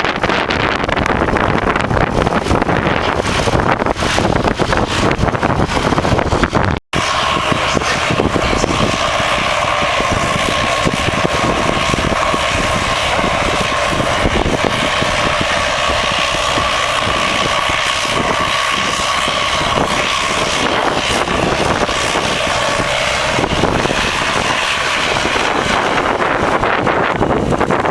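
Wind buffeting the microphone, then after a sudden cut an engine running steadily with a held whine, which fades out near the end.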